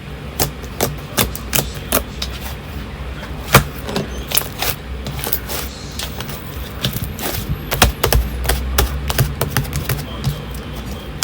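Fluffy slime being squeezed and poked, its trapped air bubbles popping in sharp irregular clicks about two a second, the loudest about three and a half seconds in, over a low steady hum.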